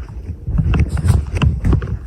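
Uneven low rumbling handling noise with thumps and a few light clicks, as of someone moving about while holding the recording device.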